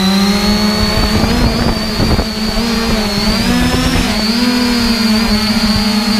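Quadcopter drone's motors and propellers whining steadily, heard from its own onboard camera, the pitch wavering and dipping briefly as it descends. A low rumble rises about a second in and fades by three seconds.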